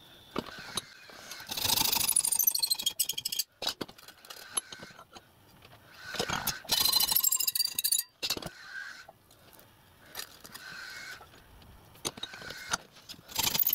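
Small angle grinder cutting into a thin steel sheet held in a vise, in three short bursts of high, whining cutting noise about a second and a half to two seconds long, with quieter handling sounds between them.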